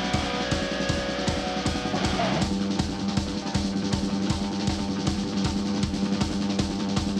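Heavy metal band playing live: a fast, even drum beat on bass drum and snare under electric guitar and bass. About two seconds in, the held guitar chord drops away and the drums carry on.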